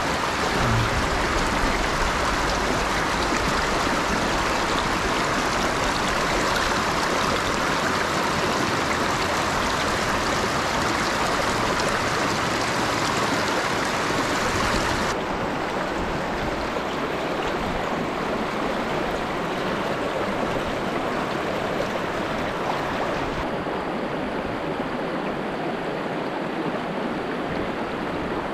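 Steady rush of a shallow mountain creek running over rocks. The water noise shifts abruptly twice, about halfway through and again near the end, becoming duller each time.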